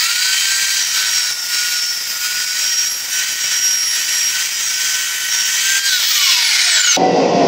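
Evolution metal-cutting chop saw spinning up and cutting through steel tube: a steady high whine over a loud cutting hiss. Near the end the motor is switched off and the whine falls away as the blade winds down, then the sound cuts off abruptly.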